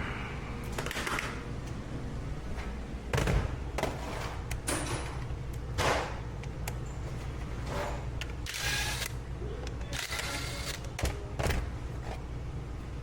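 Mower carburetor parts and tools being handled on a workbench: scattered clicks, knocks and clatters, with several short hissing bursts, over a steady low hum.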